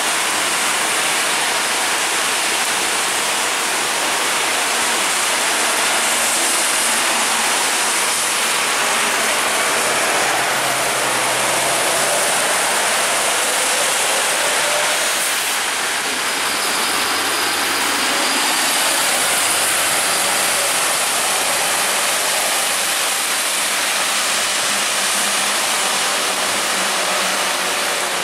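Steady hiss of heavy rain and tyres spraying through water on a wet road, as a MAN double-decker bus comes up, passes close and pulls away. Its engine is heard faintly and low under the rain near the middle.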